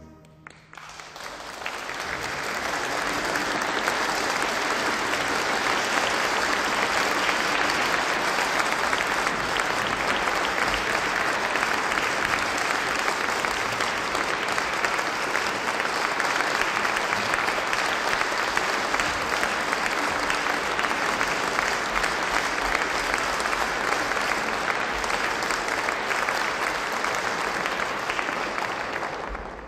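Concert audience applauding at the close of a live orchestral performance. The applause swells in over the first couple of seconds, holds steady, and fades away right at the end.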